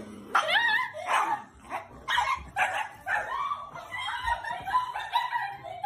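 A dog barking and yipping repeatedly in short, high-pitched calls, one after another.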